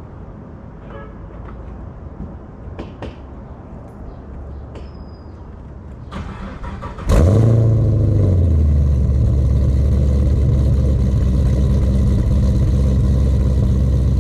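Pontiac G8 GT's 6.0-litre V8 cold-starting through a 3-inch exhaust with headers and three mufflers. After a few light clicks, the starter cranks for about a second, and the engine catches about seven seconds in with a brief rev flare. It then settles into a steady, deep idle that is not too loud.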